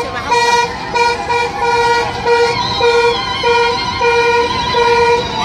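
A horn tooting over and over in short blasts of one steady pitch, irregular, roughly one to two a second.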